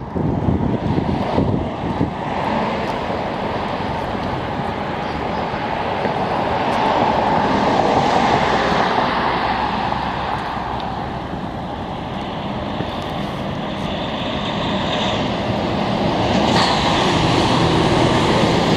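Steady vehicle rumble under wind buffeting the microphone, the wind gusting hard in the first couple of seconds.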